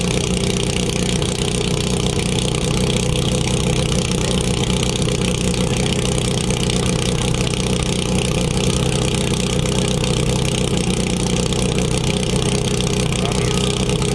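An engine running steadily at one constant speed, with an even hiss over it.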